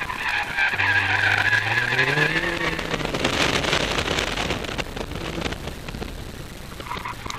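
A car's tires squealing as it turns hard, fading after about two seconds while the engine revs up under acceleration, then a loud rush of road and wind noise as the car runs on.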